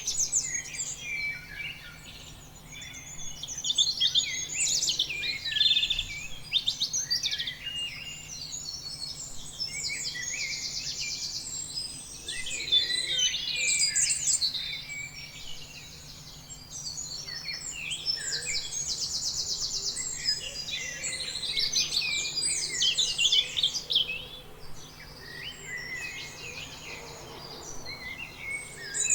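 Several songbirds singing at once: overlapping chirps, whistled phrases and fast buzzy trills that keep coming in waves.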